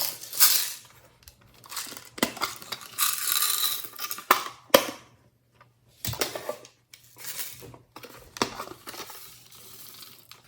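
Glossy slime being squished and worked by hand, making irregular bursts of sticky crackling with several sharp pops.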